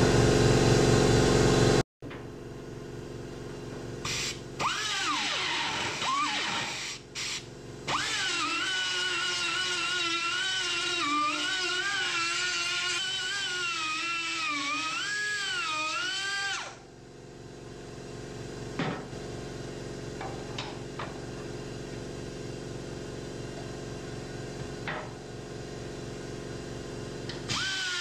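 Die grinder opening up a hole in metal. A couple of short spin-ups come about five seconds in. Then a long high whine that wavers in pitch as the bit bites and eases runs until about two-thirds through, and it stops abruptly. A louder droning hum at the very start cuts off sharply, and a faint steady hum remains under the rest.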